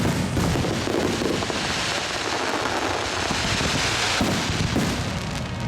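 Fireworks going off in quick succession: sharp bangs, then a dense crackling hiss for a couple of seconds, then a few more bangs near the end.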